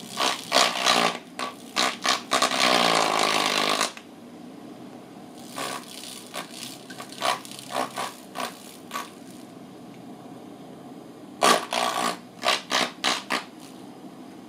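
Small black ball-shaped desk fan being pawed by a Bengal cat: its blades and grille clatter and scrape against the paw in irregular bursts. Around three seconds in, a buzz drops in pitch as the blades are slowed, then cuts off suddenly.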